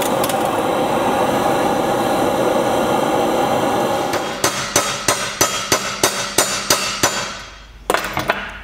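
LPG gas torch with an aerating nozzle burning steadily, heating a steel shackle pin, until it shuts off about four seconds in. Then comes a run of hammer blows, about three a second, peening the hot end of the pin over so the shackle cannot come undone.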